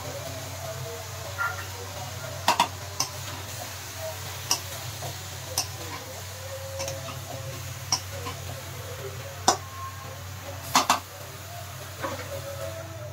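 Metal spatula stirring vegetables in a stainless steel karahi, scraping and clinking against the pan about a dozen times at uneven intervals.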